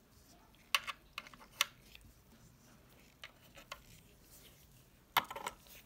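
Light clicks of steel nail-drill burs being set one by one into the holder holes on top of a Strong manicure machine, a few scattered clicks and a quick cluster near the end.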